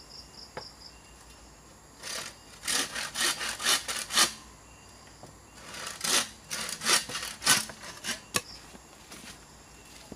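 Bow saw cutting through a bamboo pole: two bursts of quick back-and-forth rasping strokes, each lasting about two seconds, with short pauses between them.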